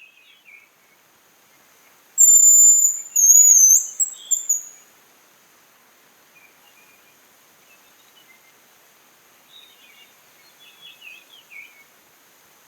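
Hazel grouse singing: a thin, very high whistled song, with one long drawn note about two seconds in followed by a few shorter trilled notes. Faint chirps of other birds come near the start and again near the end.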